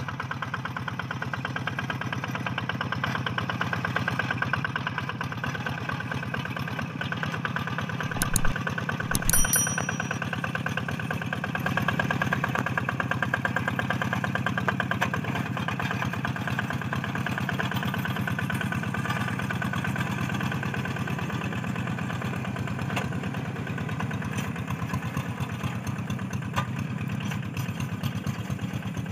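Single-cylinder Kubota diesel engine of a Quick G3000 Zeva two-wheel hand tractor running steadily while it pulls a harrow through a flooded rice paddy. About eight and nine seconds in, two brief, sharp, ringing clinks stand out over the engine.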